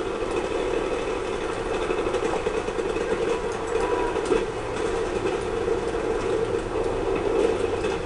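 Shooter video game audio during a large multiplayer match: a steady, dense rumble with faint scattered clicks.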